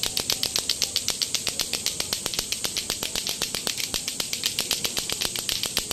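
Two lato-lato clacker toys, pairs of hard plastic balls on strings, being swung at once so the balls knock together in rapid, steady clacks, about eight to ten a second.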